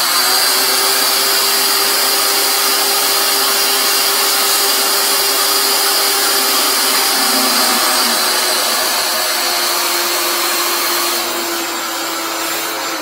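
Wet/dry shop vacuum running with its hose in a blocked toilet bowl, sucking out the standing water: a loud, steady motor whine over rushing air. It eases slightly near the end.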